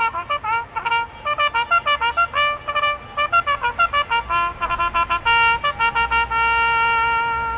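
A military bugle call played solo on a trumpet: runs of quick short notes jumping between pitches, then a long held note near the end.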